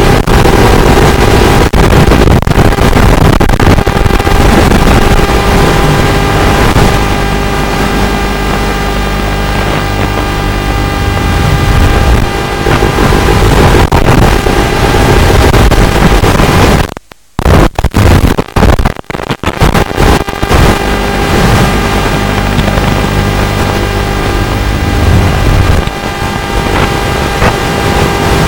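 Audio of an Aurora 90GT micro drone's analog FPV feed during flight: a loud, steady buzz of several fixed tones over hiss. About halfway through, the sound cuts out and stutters in a series of short dropouts before it returns.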